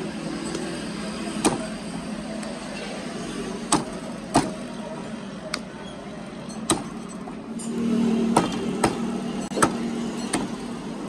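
A meat cleaver chopping raw chicken on a wooden chopping block: a series of sharp chops at uneven intervals. A steady low hum runs underneath and gets louder for a couple of seconds past the middle.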